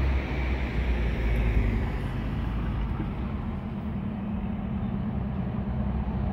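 Road traffic noise: a steady vehicle rumble, with a car going by in the first two seconds or so.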